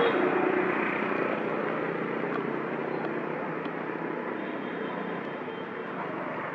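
Steady drone of a distant engine, slowly fading away.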